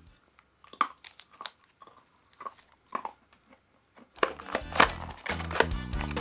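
Small plastic parts and packaging of a candy toy kit being handled: a scatter of short clicks and crinkles. Background music comes back in about four seconds in.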